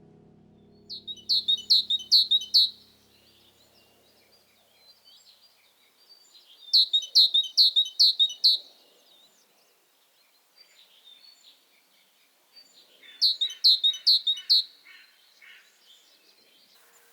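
A songbird singing three short phrases, each a quick run of about four loud, downward-sliding notes, with softer chirps in between.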